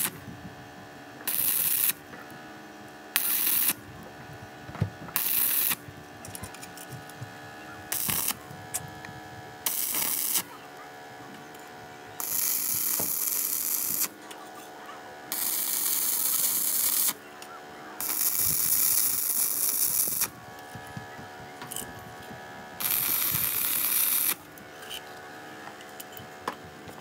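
Stick-welding arc from an MMA 200 inverter welder, struck about ten times in short tack welds: each weld is a burst of crackling, sizzling hiss, the early ones under a second long and several in the second half lasting up to about two seconds.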